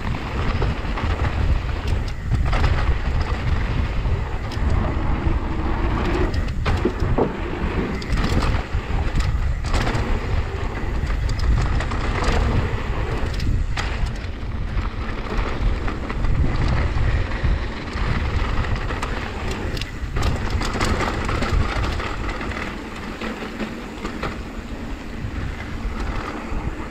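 A mountain bike descending a dry dirt trail at speed: knobby tyres rolling over loose dirt and gravel, and the bike rattling over bumps. Heavy wind rumble on the microphone runs under it all.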